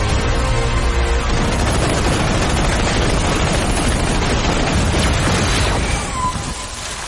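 Cinematic background score: pitched music gives way about a second in to a dense, loud wash of noise with heavy low booms, which fades about six seconds in.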